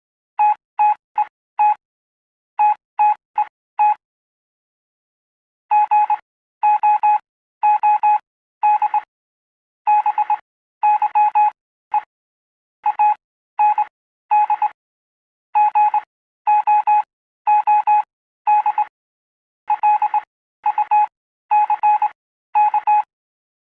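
Morse code sent as a beeping tone at one steady pitch. It opens with two groups of four quick short beeps, then after a pause it runs on with mostly longer dashes and an occasional short dot.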